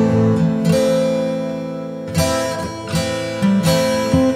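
Background music of plucked string chords over sustained tones, with a new chord struck about every second.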